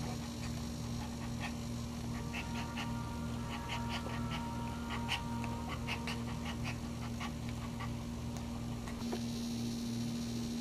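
A dog in labour panting in a steady rhythm over a constant low hum, with quick soft clicks for several seconds in the middle.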